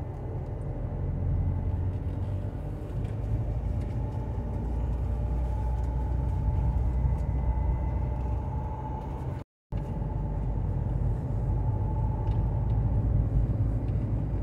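Car driving along a town road, heard from inside the cabin: steady engine and road rumble. The sound drops out for a split second about halfway through.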